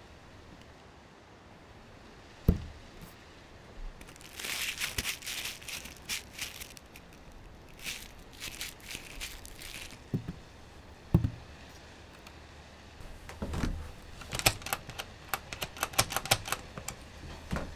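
Foley sound effects: two single low thuds, two spells of scratchy scrubbing as a mitten is wiped across frosted window glass, and near the end a quick run of clicks and rattles from a door handle being tried.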